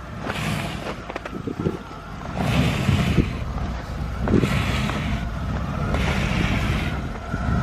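Car stuck in snow, its engine running while the tyres spin in the snow in four surges about two seconds apart, over a steady low rumble.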